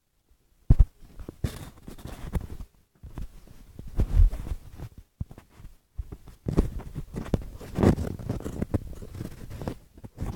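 Handling noise from a phone being carried: irregular rustling and rubbing as it brushes against clothing and hands, with a few dull knocks, the strongest about a second in and about four seconds in.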